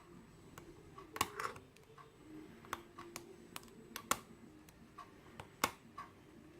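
Lock pick and tension wrench working the pins of a Yale euro cylinder lock: a dozen or so sharp, irregular little metallic clicks as pins are lifted and set.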